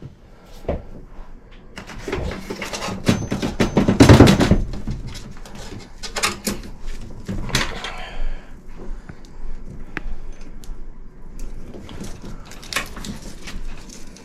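Handling noise of electrical wiring being worked into an air handler cabinet: rustling and scraping with a run of knocks and clicks, loudest about four seconds in, then sparser taps.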